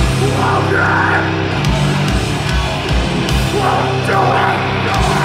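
Death metal band playing live: distorted electric guitars and bass over pounding drums, loud and dense.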